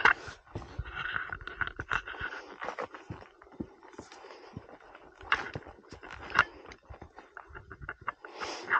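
A hiker's footsteps crunching and scuffing over dry fallen leaves, soil and roots, uneven steps with a few heavier footfalls at the start and around five and six seconds in.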